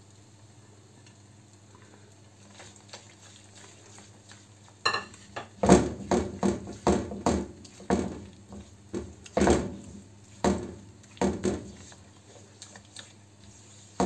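Silicone spatula stirring thick white sauce with melting cheese in a nonstick pan: a run of irregular knocks and scrapes against the pan, starting about a third of the way in.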